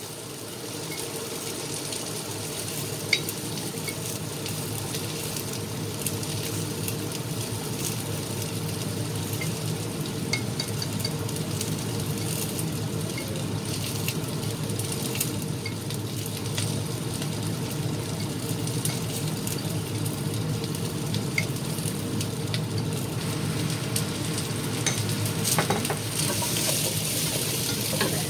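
Pieces of shallot and garlic frying in oil in a stainless steel frying pan: a steady sizzle with scattered crackling pops. Near the end a spatula stirs the pan and the sizzle gets louder.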